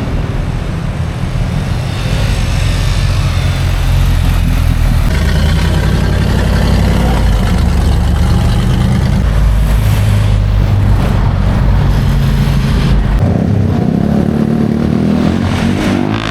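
Engines of slow-moving road traffic passing close by: a steady low rumble that eases about thirteen seconds in.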